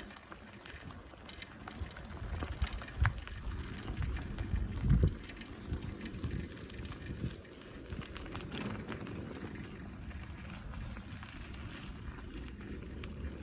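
Bicycle rolling along a dirt path: tyres crackling over grit and small debris, with wind rumbling on the microphone and a few low bumps in the first five seconds.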